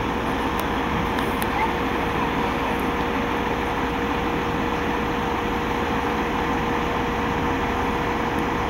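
Fire engine's diesel engine running steadily, with a constant hum tone over an even rumble.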